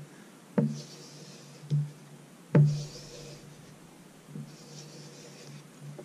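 A knife blade is stroked across a compound-loaded leather strop, giving several soft rubbing swipes. Two sharp knocks about two seconds apart stand out, the second one louder.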